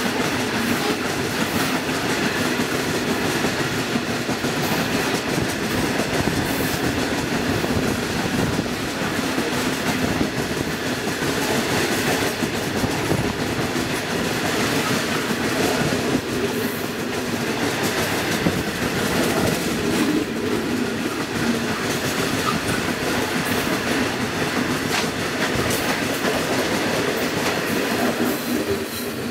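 Iron-ore train's loaded ore wagons rolling past close by: a steady rumble and clatter of steel wheels on the rails, with clickety-clack from the wheelsets.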